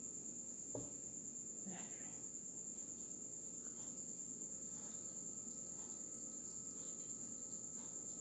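Insect trilling steadily at a high pitch, with a soft knock about a second in.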